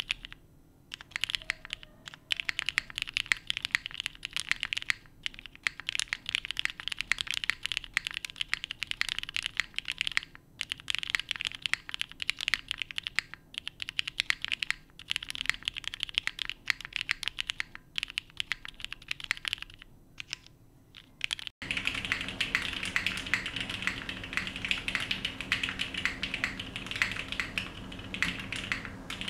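Fast typing on a custom mechanical keyboard with lubed Cherry MX Black linear switches, no case foam and GMK Hanok keycaps: a dense stream of keystrokes broken by a few short pauses. About two-thirds of the way through the sound cuts out for an instant, then the typing resumes louder and fuller.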